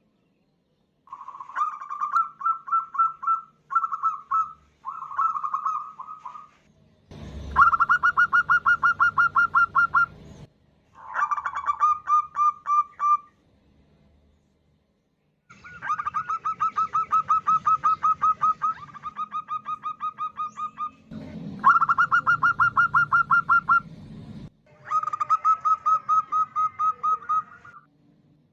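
Female zebra dove (perkutut) calling to attract a male: bouts of rapid, evenly spaced staccato notes, about eight bouts with short pauses between them. A low rumbling noise runs under two of the longer bouts.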